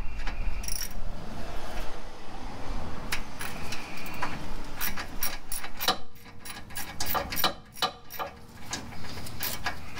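Irregular metallic clicks and clatter of hand tools and parts during vehicle repair work, denser in the second half, over a low rumble in the first half.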